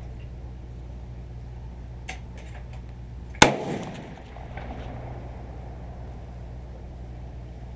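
A single .30-30 rifle shot about three and a half seconds in: one sharp crack with a short echoing tail, over a steady low hum.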